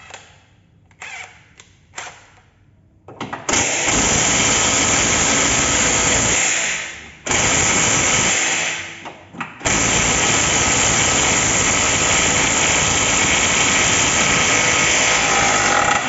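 A power tool run in three long bursts, the last about six seconds, on the 21 mm nuts and bolts of a car's front control arm. A few short knocks from tools come first.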